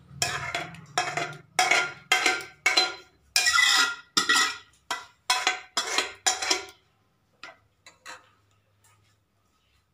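Steel ladle scraping blended greens out of an aluminium pressure cooker into a kadhai, metal on metal, about two scrapes a second. The scraping stops about seven seconds in, followed by a couple of light clinks.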